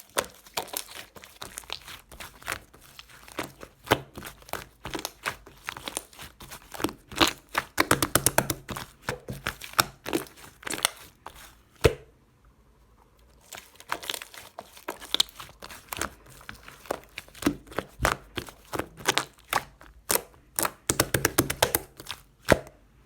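Clay-mixed slime being squeezed, stretched and pressed by hand, giving dense runs of crackling clicks and small pops. There is a short pause about halfway through.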